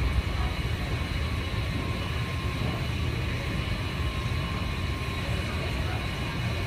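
Steady low rumble and hum of an underground metro station, with a faint steady high whine over it and no distinct events.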